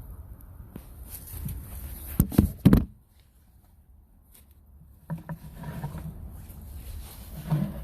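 Handling and scraping noises with two sharp knocks in quick succession about two and a half seconds in, then a brief lull before more rustling and a bump near the end.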